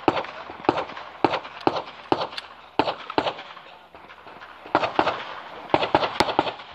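Pistol shots fired in quick irregular strings, two to four shots a second, with a break of about a second midway.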